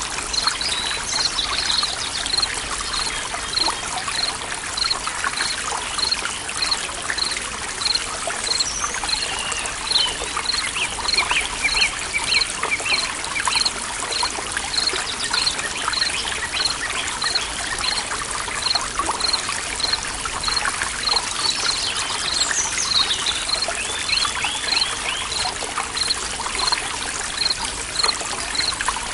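Stream water trickling and babbling steadily, with birds singing in short phrases and a high chirp repeating evenly about once every three-quarters of a second.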